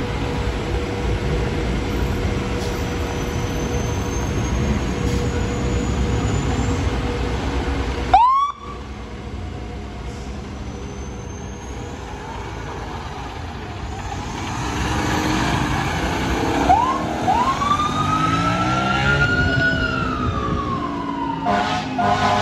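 Fire engine's diesel running, then a short siren chirp and a siren winding up to a high wail and slowly winding back down as the engine pulls away, with a few short horn blasts near the end.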